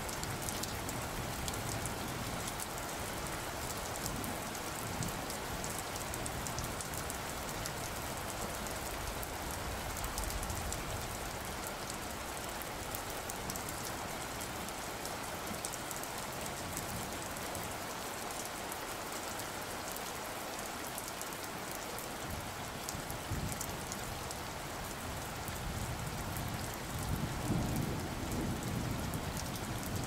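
Steady rain falling: an even hiss dotted with many small drop ticks. A low rumble swells near the end.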